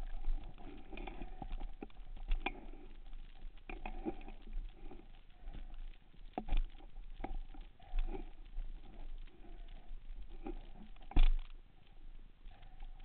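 Underwater handling noise from a diver's speargun and camera housing: scattered clicks and knocks, with one louder knock about eleven seconds in, over a faint on-off hum.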